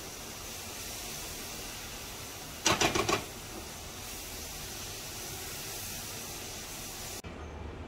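Potato and onion filling sizzling with a steady hiss in a wok as a spatula stirs it to dry out its moisture. About three seconds in, the spatula knocks against the pan about four times in quick succession. The hiss cuts off suddenly near the end.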